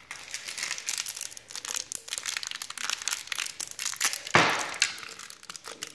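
Plastic candy wrappers crinkling and crackling as candies are unwrapped by hand, with one louder crackle about four and a half seconds in.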